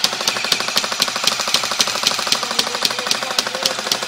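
Airsoft electric rifle firing a long full-auto burst: a fast, steady mechanical rattle, with sharper cracks of shots about four a second over it.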